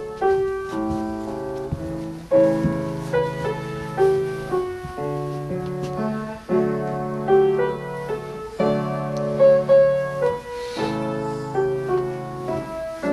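Piano playing a slow hymn in held chords, with a new chord struck every second or two.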